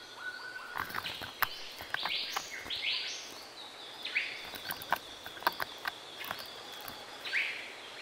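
Rainforest sounds: a steady high insect tone and scattered bird calls, over many sharp clicks and short rasping scrapes from a female riflebird probing and tearing at tree bark as she feeds.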